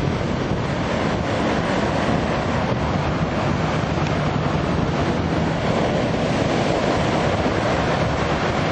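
Canadair twin-turboprop water bomber at full power, its engines droning under the hiss of spray as its hull skims the sea to scoop water, before it lifts clear near the end. Heavy wind buffets the microphone throughout.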